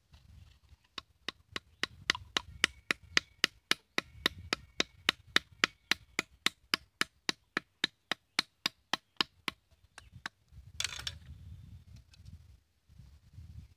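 Thin metal blade point jabbed again and again into a green bamboo stick on a wooden stump to cut a notch: sharp, even clicks about three or four a second, stopping about ten seconds in. A short rustle follows near the end.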